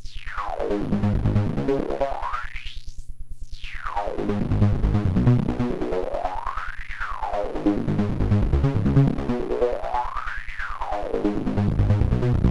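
Modular synthesizer: a dense cluster of detuned oscillators from a Synthesis Technology E340 Cloud Generator run through a Verbos Dual Four Pole filter. The filter sweeps up and down in a repeating cycle about every three and a half seconds, each peak a little lower than the last, over a rapid pulsing in the low end.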